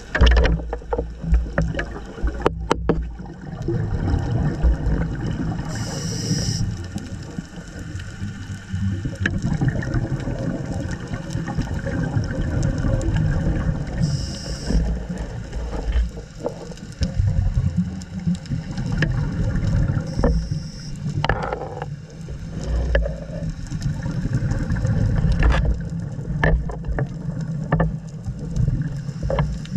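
A scuba diver's regulator breathing, heard underwater through a GoPro housing: bubble noise swelling and fading in surges, with scattered small clicks and a short high hiss three times, about eight seconds apart.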